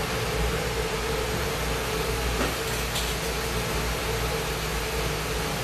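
Lampworking torch burning with a steady hiss and hum, flame on the glass, with two faint ticks around the middle.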